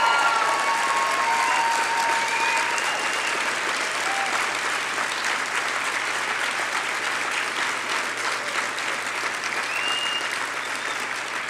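Large audience applauding steadily, with a few cheering voices at the start; the applause slowly eases toward the end.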